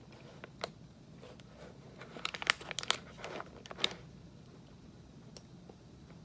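Plastic jerky pouch crinkling as it is handled, with a cluster of crackles in the middle and a few single ones around it.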